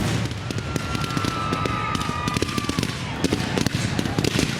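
Fireworks finale barrage: rapid, dense shell bursts and crackling, with a long high whistle from about half a second in to near three seconds.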